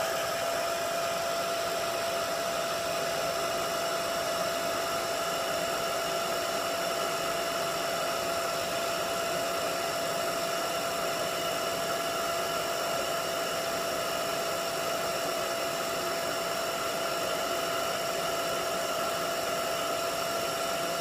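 Handheld hairdryer with a directional nozzle running steadily on medium heat, a rush of air with a constant motor whine, blown at the eyelashes to dry and curl them.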